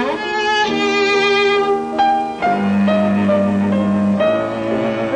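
Cello bowed in a slow melody of held notes, with a long low note about halfway through.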